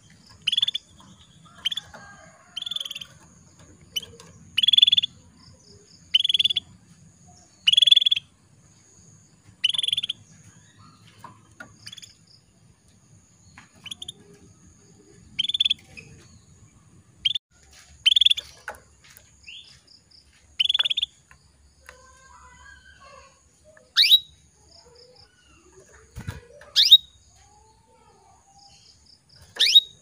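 Female canary calling to a male: short single chirps, one every second or two with a few pauses, and near the end a few sharper calls that sweep down in pitch.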